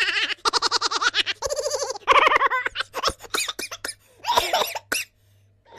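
Laugh sound effects: several different laughs one after another, in quick pulsing bursts of giggling and cackling, with short breaks between them.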